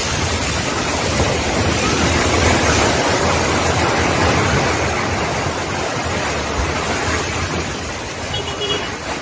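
Multi-storey concrete apartment building collapsing in the earthquake: a loud, steady rushing roar of falling rubble, loudest two to three seconds in, then slowly easing.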